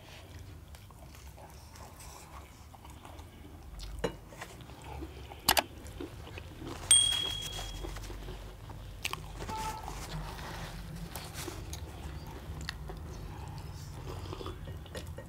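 Close-up eating sounds: crisp crunching bites into fried samosa pastry and chewing, with three sharper crunches near the middle.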